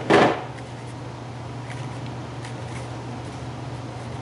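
A Cooper SK2000 HDPE helmet shell knocks down onto a wooden tabletop once at the very start, followed by a few faint handling clicks over a steady low hum.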